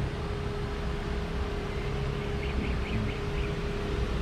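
A steady machine hum, one held tone over a low rumble. Just past the middle comes a short run of faint chirps.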